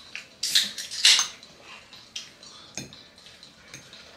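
Mealtime clatter of cutlery and tableware at a table: two louder noisy bursts about half a second and a second in, then a few scattered clicks.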